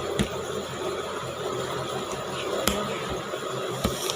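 Sticky slime being squeezed and pulled apart in the hands, giving a few sharp clicks and pops over a steady background hiss.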